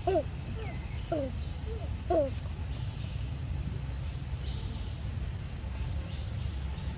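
Steady high chirring of crickets over a low rumble, with three short, falling animal calls about a second apart in the first two and a half seconds.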